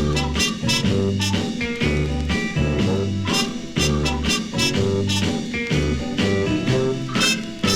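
Instrumental break of a 1960s swing-style pop record played from a vinyl LP, with a bass line changing notes on the beat and regular drum strokes.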